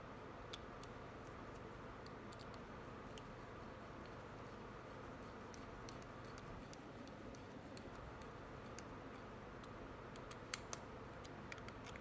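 Faint, scattered metallic clicks and ticks of a hex driver turning small screws into an RC car's two-speed gear, with two sharper clicks near the end, over a low steady hiss.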